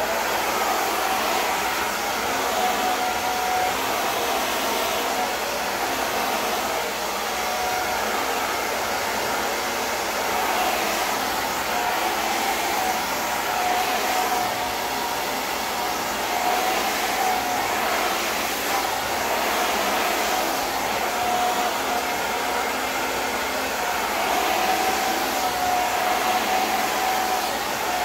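Handheld hair dryer running steadily, a rush of blown air with a steady motor whine, being used with a brush to blow-dry hair straight.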